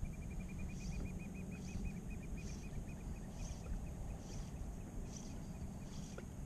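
Fishing reel being cranked during a lure retrieve: a fast, even run of light ticks, about ten a second, that fades out about three and a half seconds in. Wind and water hiss sit underneath, with short, faint high swishes about once a second.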